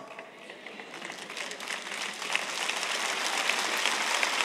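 Large audience applauding: the clapping starts faint and swells over the first two seconds, then holds steady.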